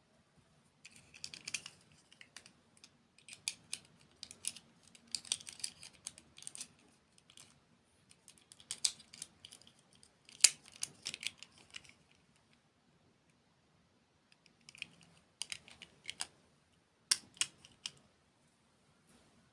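Close-up crunching of crisp dessert being bitten and chewed: bursts of sharp crackling clicks, in about six bursts with short pauses between them.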